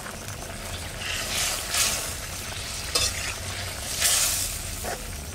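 Metal spatula stirring and scraping in a wok of boiling hilsa-head and potato curry, over the steady bubbling of the broth. The louder stirring strokes come about one and a half seconds and four seconds in.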